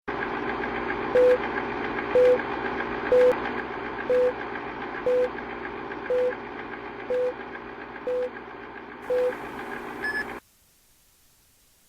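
Short electronic beeps, one about every second, nine in all, over a steady hiss and hum. Everything cuts off suddenly about ten seconds in.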